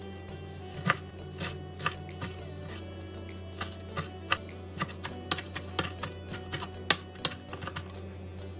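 Chef's knife chopping curly parsley on a bamboo cutting board: sharp knocks of the blade on the board, a few spaced strokes at first, then quicker, irregular chopping after a few seconds, over background music.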